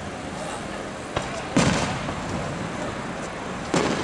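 Distant aerial firework shells bursting: a small pop a little over a second in, then two louder booms about two seconds apart, the first with a low rumbling tail, over a steady background hiss.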